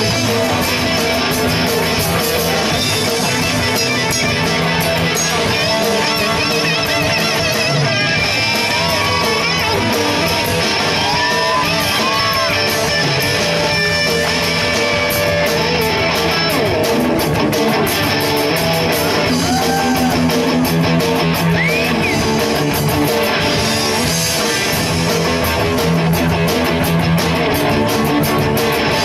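Live rock band playing an electric-guitar-led passage over drums with steady cymbal strikes.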